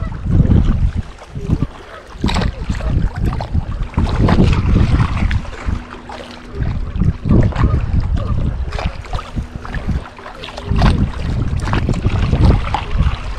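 Wind buffeting the microphone in gusts, with scattered small clicks and rattles from a baitcasting reel being handled and cranked.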